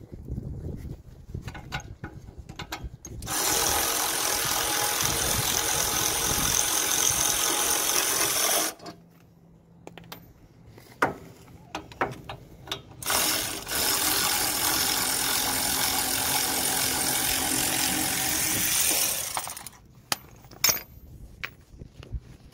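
Cordless power ratchet running in two steady spells of about five and six seconds, backing out the F150's brake caliper bolts, with a few sharp metal clinks in the pause between.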